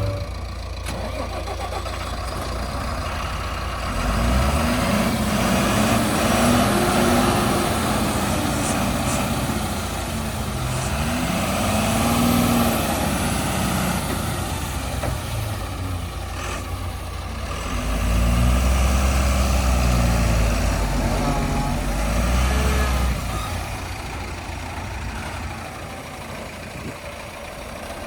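Diesel engine of a JCB 3DX backhoe loader working, its speed rising and falling repeatedly. It revs up under load several times, loudest about four seconds in and again around eighteen to twenty-three seconds, and settles back in between.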